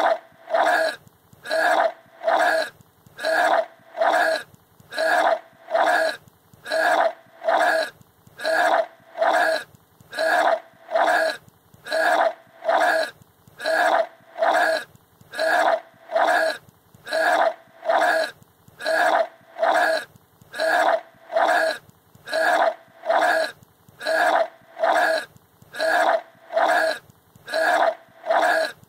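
A person retching and gagging over and over, each heave a short throaty burp-like retch, repeating in a very even rhythm of about three heaves every two seconds.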